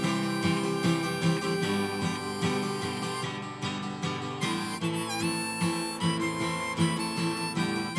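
Harmonica played in a neck rack, a solo of held notes with one note bending down about five seconds in, over a rhythmically strummed guitar.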